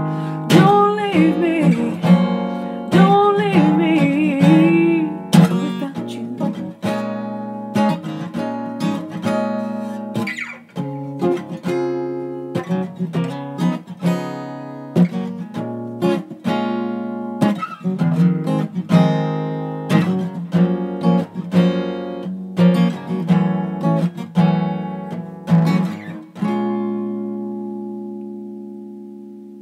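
Acoustic guitar playing the end of a slow song, with a sung voice over the first five seconds. The guitar then picks on alone and ends on a held chord that slowly fades out.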